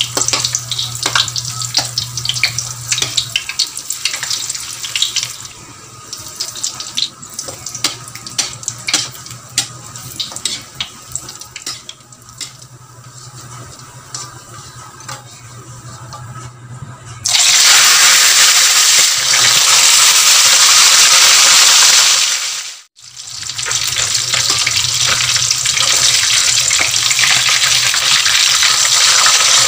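Hot cooking oil in a wok crackling and popping as pre-fried pieces of pork fat crisp up. About seventeen seconds in a much louder, dense sizzle begins as a whole tilapia goes into the oil; it breaks off for a moment, then carries on steadily.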